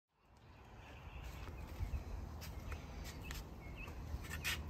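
Outdoor ambience that fades in over the first second: small birds chirping now and then over a low steady rumble, with a few light clicks.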